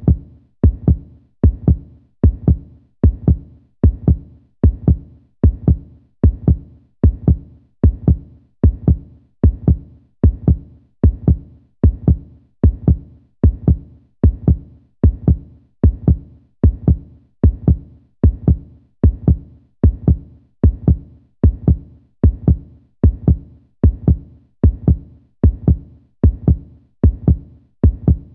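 Heartbeat sound effect: a steady, even lub-dub rhythm of low double thumps, repeating without change.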